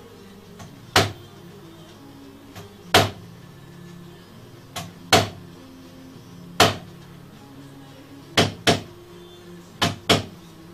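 Wooden mallet striking a chisel into wood, about eight sharp knocks one to two seconds apart, the last four in two quick pairs. Quiet background music plays underneath.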